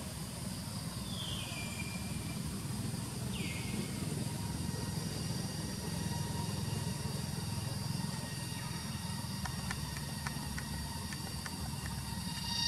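Forest ambience: a steady low rumble under a faint high insect hum. Two short whistled calls fall in pitch, about one second and three and a half seconds in. A few faint clicks come near the end.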